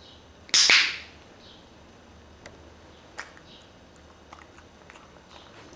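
A training clicker clicks once, sharply, about half a second in, marking the dog's paw-over-face trick. A few faint light ticks follow.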